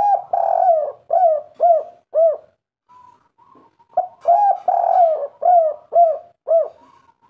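Spotted dove cooing its 'kuk 3' song twice, about four seconds apart. Each phrase is a drawn-out coo followed by three short, falling coos.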